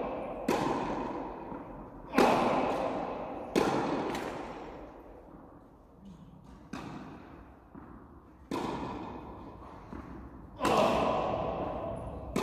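Tennis balls struck by rackets, with sharp pops about every one and a half to two seconds, six or so in all. Each hit rings on in a long echo through a large indoor tennis hall.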